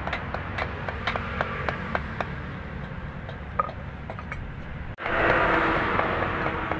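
Light, irregular metal taps of hammer work on a steel cleaver blade at an anvil block, two or three a second, over a steady low background rumble. About five seconds in, a cut brings in a louder rushing hiss.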